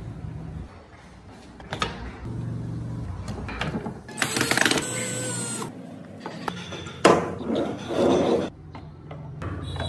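Cordless drill-driver whirring for about a second and a half as it drives a screw into wood. A few seconds later, a sharp knock followed by handling noise.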